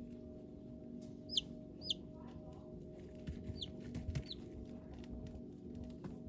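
Baby chicks peeping: four short, high chirps, each falling in pitch, over a steady low hum.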